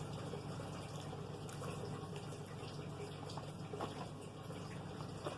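Quiet eating sounds: a few faint soft clicks and mouth noises over a steady low hum.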